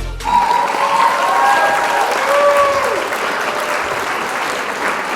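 Applause, with a few voices cheering over it during the first three seconds.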